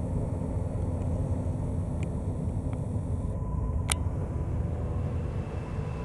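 Autorack freight cars rolling past on the rails: a steady low rumble of wheels on track, with a sharp click about four seconds in.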